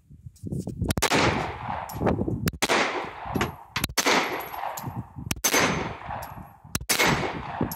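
A string of handgun shots fired one after another at irregular intervals, each a sharp crack with a short echo, with steel plate targets clanging when hit.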